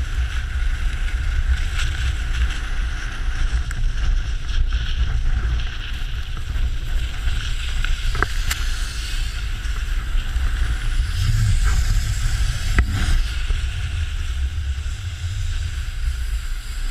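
Wind buffeting an action camera's microphone at skiing speed, a steady loud rumble, over the hiss of skis and a snowboard sliding on snow. A couple of sharp clicks come partway through.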